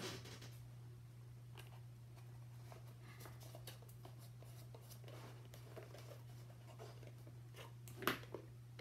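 Faint rustling and light scraping of chipboard craft pieces being handled and pressed together by hand, over a steady low hum. A sharper clatter comes about eight seconds in, as the hot glue gun is picked up off the table.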